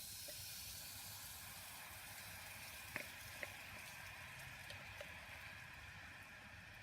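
Butane gas stove burner hissing steadily, with a few faint clicks about three seconds in and again near five seconds.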